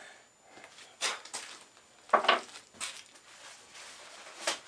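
Light metallic clinks and knocks as a machined steel collet-chuck backplate is handled against the lathe: several separate clicks, the loudest about two seconds in.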